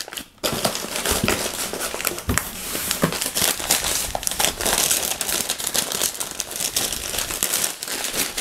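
Packing paper crinkling and rustling with many small crackles as hands unwrap a paper-wrapped part. There is a brief lull just after it starts.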